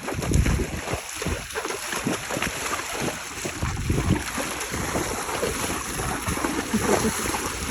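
Horse wading through shallow pond water, hooves splashing and sloshing irregularly, with wind rumbling on the microphone.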